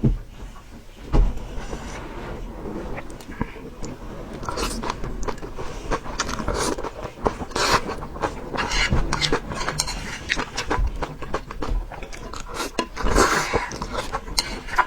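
A person chewing and crunching food, a rapid run of sharp crunches and mouth clicks that grows busier a few seconds in.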